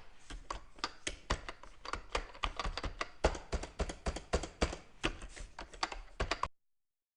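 Typing on a computer keyboard: a quick, uneven run of key clicks, several a second, that cuts off suddenly near the end.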